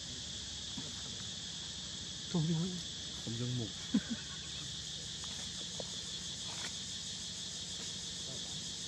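A steady, high-pitched drone of insects chirring without a break. A few spoken words cut in about two and a half to three and a half seconds in, with a sharp click just after.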